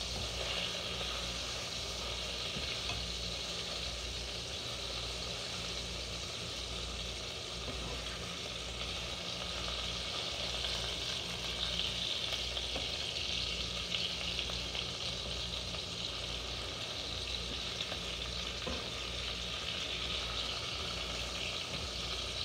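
Bacon sizzling steadily in a frying pan.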